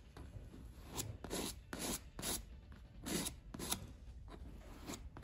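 Small metal spatula scraping leather filler across a cracked vinyl seat: a run of short, irregular scraping strokes, roughly two a second.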